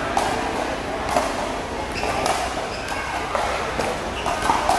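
A ball being struck back and forth in a racket-sport rally: sharp hits about once a second, with faint voices in the background.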